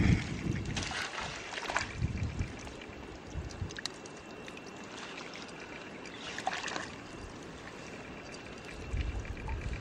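Shallow river water trickling and dripping at the bank, with a few brief scuffs as the wet mesh net is handled.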